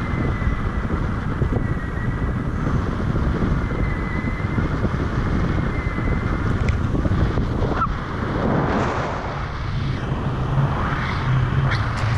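Steady rush of wind buffeting the camera microphone as the tandem paraglider flies through the air.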